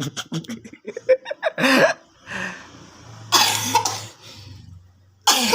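A man coughing in several separate fits, the longest and loudest about three and a half seconds in.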